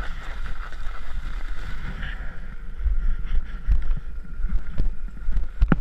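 Wind buffeting an action camera's microphone while riding a chairlift, a steady low rumble with a faint steady whine, broken by scattered clicks and a burst of clattering knocks near the end.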